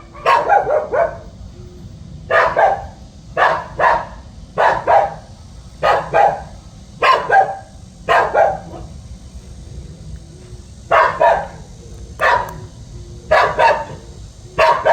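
A dog barking in a watchdog manner, about once a second, in single barks and quick pairs, with a pause of a couple of seconds near the middle.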